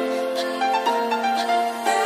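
Background music: soft keyboard or piano-like notes, several held at once and changing about every half second.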